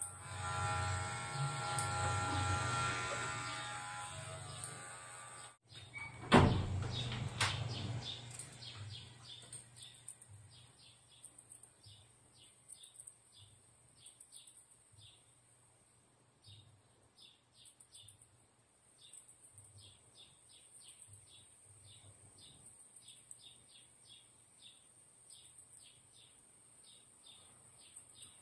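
Electric hair clipper running with a steady hum for the first few seconds. After a brief louder rustle, scissors snip hair over a comb in a steady run of short, crisp snips, two or three a second.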